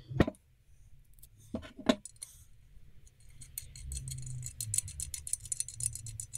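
Small metal bolt being handled and turned by hand in the drain-plug thread of an aluminium Derbi engine crankcase: a few sharp clinks and knocks, then from about halfway a quick, steady run of light metallic ticks as it threads in.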